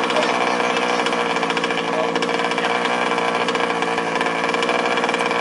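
Small two-stroke engines of several 1/5-scale RC off-road cars running together, a steady buzzing with overlapping pitches.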